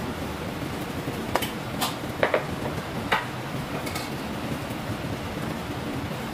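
Steady whooshing of a kitchen ventilation fan, with about six sharp knocks and clinks of utensils and cookware between about one and a half and four seconds in.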